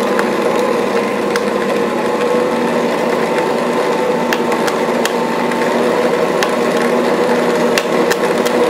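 Ankarsrum Assistent mixer's motor driving its grain mill attachment, grinding wheat berries into flour at around medium speed: a steady mechanical hum with scattered sharp cracks as the kernels are crushed.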